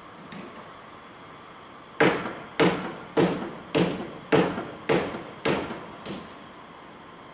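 Eight loud, evenly paced bangs, a little under two a second, each dying away briefly, the last one weaker: something being struck over and over.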